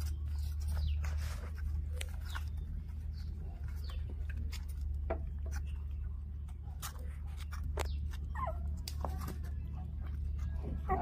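Young puppies whimpering now and then with short, whiny cries, among scattered small clicks and taps from their paws and noses at a bowl, over a steady low hum.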